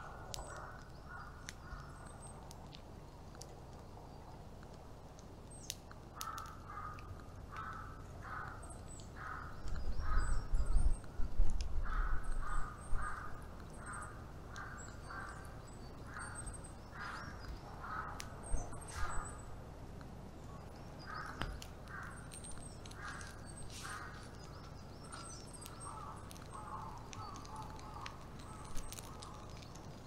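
Crows cawing in repeated runs of harsh calls. A loud low rumble runs for a few seconds around the middle, with scattered sharp clicks.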